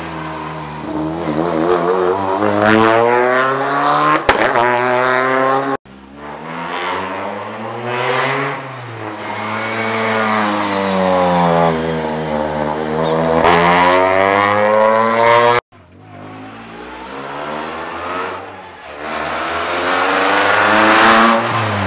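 Rally cars passing at speed one after another, engines revving hard, the pitch climbing as each approaches and falling away as it goes by. The sound breaks off abruptly twice, giving three separate passes. There is a sharp crack about four seconds in.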